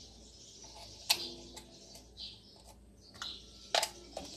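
Sharp clicks and knocks of a cut plastic bottle being handled: one loud click about a second in, and the loudest knock near the end as the bottle is set down on a stone countertop.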